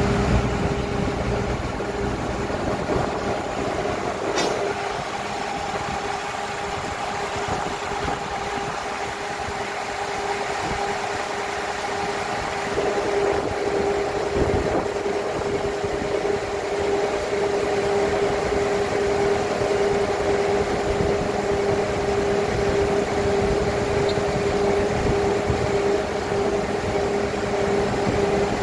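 Horizontal directional drilling rig's engine and hydraulics running steadily with a constant whine. About halfway through it gets louder and the whine grows stronger.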